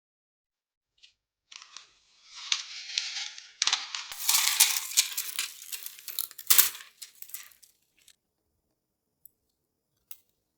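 Crinkling, rustling handling noise with many sharp clicks as PC parts are handled during a build. It starts about a second and a half in, is loudest in the middle and dies away near the end, with a couple of single ticks after.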